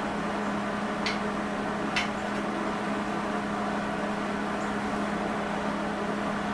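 Steady mechanical hum with a constant low tone, broken by two short, light clicks about a second apart near the start.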